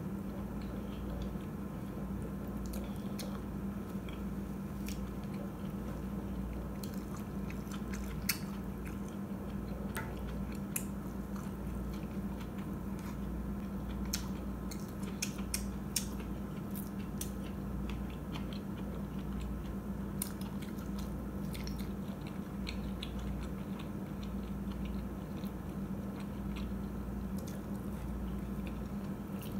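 Close-miked chewing and biting of oden (fish cakes, fish balls and fried tofu from the broth), with scattered sharp clicks over a steady low hum.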